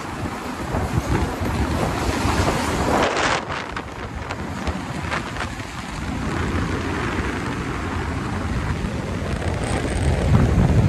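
Wind rushing over the microphone of a Bajaj Pulsar 220 motorcycle riding at highway speed, with engine and road noise beneath. It surges briefly about three seconds in and grows louder near the end.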